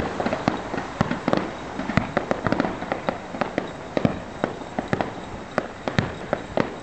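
Aerial fireworks bursting: a rapid, irregular string of sharp bangs and crackling pops, several a second, dying down near the end.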